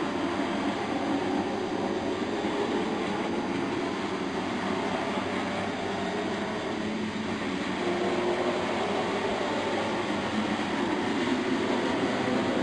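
Model trains running on a layout, a steady rolling rumble of wheels on the rails and motor noise.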